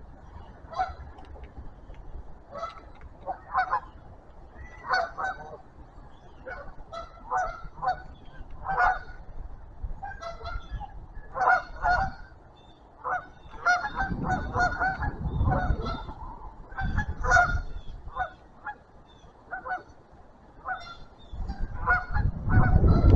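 A flock of geese honking, many short calls overlapping and repeating, some closer and louder than others. A low rumbling noise swells in twice, in the middle and near the end.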